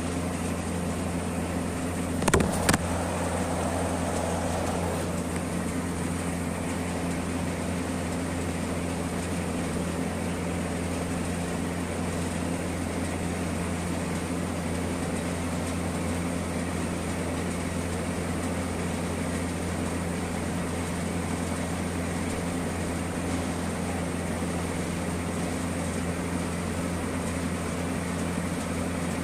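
A steady low mechanical hum, unchanging throughout, with two sharp clicks close together about two and a half seconds in.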